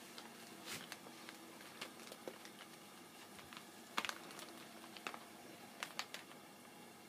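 Faint, scattered clicks and crinkles of a cat pawing and nosing at a plastic packet of jerky treats, the sharpest about four seconds in and a few more around five and six seconds.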